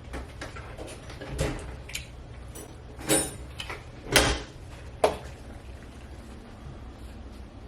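A handful of short knocks and clunks, like doors or things being set down, the loudest about three, four and five seconds in, over a low steady hum.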